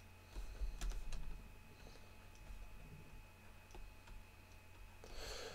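Faint scattered clicks of a computer mouse or pen input being used to draw, with a few low bumps in the first second. There is a short rustle near the end.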